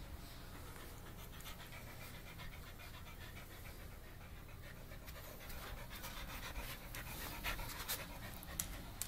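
Dog panting in quick, even breaths, getting louder over the second half.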